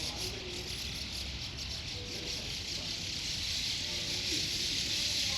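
A large flock of birds calling all at once, merging into a dense, steady high-pitched chatter that swells a little near the end.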